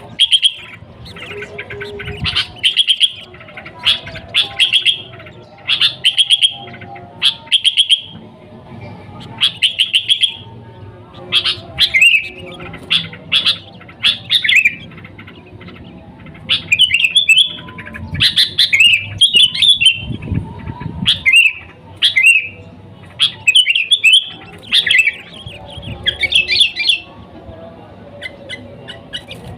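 Sooty-headed bulbul (kutilang) singing: short, loud chirping phrases repeated about once a second, turning more varied and warbling in the second half.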